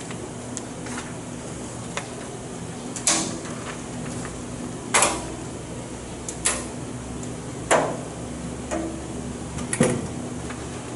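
Wiring leads being plugged into relay and pushbutton terminals on an electro-pneumatic control training board: half a dozen sharp clicks and knocks at uneven intervals over a steady low hum.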